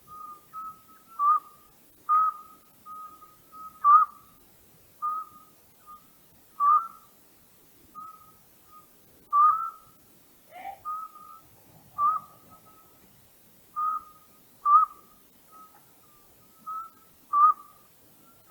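An owl giving short whistled hoots at one steady pitch, about one a second, some louder than others. About ten seconds in, a different call with a higher and a lower part breaks in once.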